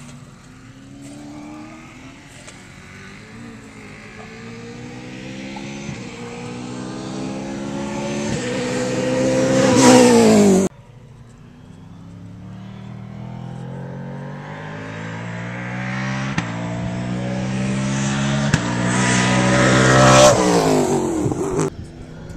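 V8 Supercar racing cars at full throttle, the V8 engine note climbing through the gears with quick upshifts as each car closes in. The first cuts off abruptly a little after ten seconds in; the second grows loudest near the end, then drops in pitch and fades as it passes.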